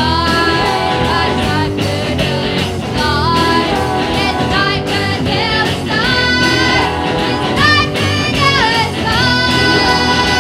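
Neo-psychedelic rock song: electric guitars, bass and drums with sung vocals, a chord held steady near the end.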